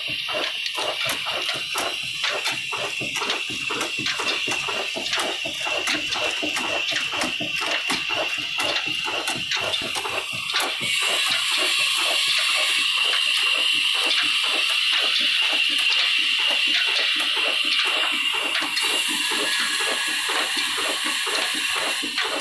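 Old Ruston Hornsby diesel engine running with a steady beat of exhaust strokes over a constant hiss, the beats quickening from about three or four a second to about five a second halfway through as the engine picks up speed.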